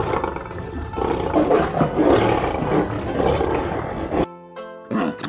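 Bengal tigers roaring during a scuffle. The roaring cuts off suddenly about four seconds in, leaving a few soft steady tones.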